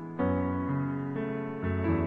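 Slow, tender piano music: sustained chords, with a new chord struck just after the start and single notes changing about every half second.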